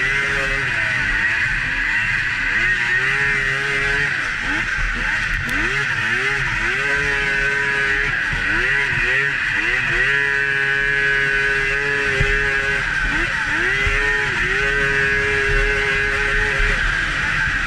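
Polaris XCR 800 two-stroke triple snowmobile engine running hard on a steep climb, its pitch dipping and rising again several times as the throttle is eased and reopened, with a steady hiss underneath.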